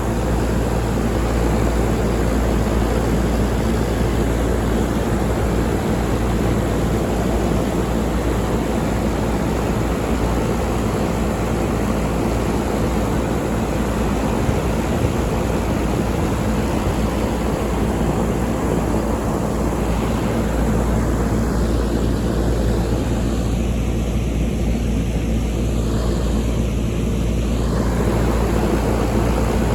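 5-ton York air conditioner running steadily: a fan whoosh over a low electrical hum. The higher part of the whoosh dulls for several seconds about two-thirds of the way through.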